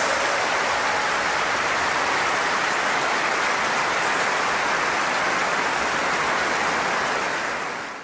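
Large concert audience applauding steadily in a dense, even wash of clapping that fades out near the end.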